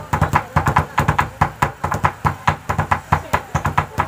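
Percussion playing a fast, even beat, about five strikes a second, each with a low thud and a sharp crack.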